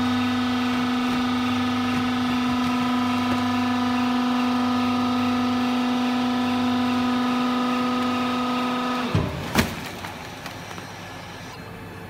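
Vertical hydraulic cardboard baler's power unit, an electric motor driving a hydraulic pump, running with a steady hum as the press plate retracts upward off a finished bale. The hum cuts off about nine seconds in, and two sharp clunks follow.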